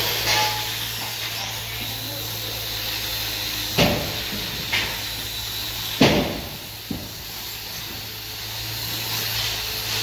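Steel trowel scraping mortar into the tie holes of a concrete wall: a few short, sharp scrapes, the loudest about four and six seconds in, over a steady low hum and hiss.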